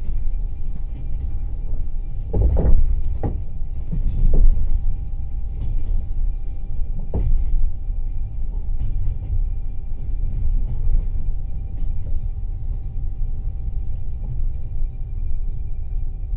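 Passenger train car running on the rails, heard from inside the open sleeper (platzkart) car: a steady low rumble with a few sharp clanks in the first half.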